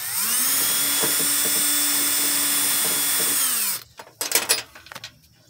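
Cordless drill with a wire-wheel brush spinning up, running steadily for about three and a half seconds while it scrubs a battery cable terminal, then winding down and stopping. A few sharp clicks and knocks follow as the tools are handled.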